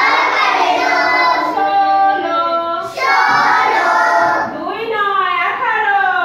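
A class of young children singing together in unison, a sing-song chant of the multiplication tables, in two phrases with a short break about three seconds in.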